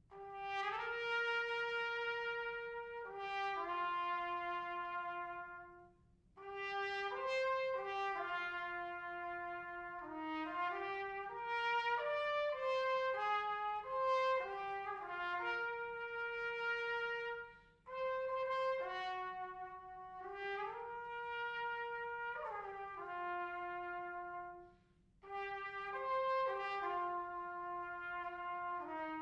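Unaccompanied trumpet playing a slow, lyrical melody of held notes in long phrases, with short breath breaks about 6, 18 and 25 seconds in.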